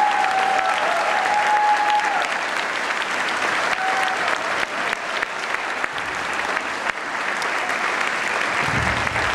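Large crowd applauding steadily, with a held high-pitched call over the clapping in the first two seconds.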